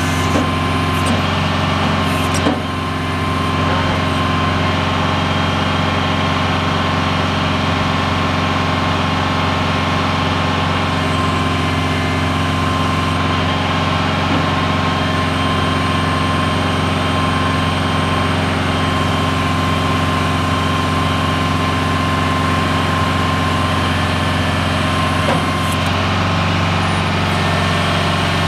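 Oshkosh M977 HEMTT's Detroit Diesel engine running steadily while the truck's hydraulic crane boom is raised, with a steady high whine over the engine. A single knock about two and a half seconds in.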